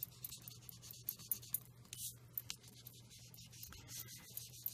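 Faint, quick, irregular scratching and ticking of a small ink applicator worked over card stock, with a steady low electrical hum underneath.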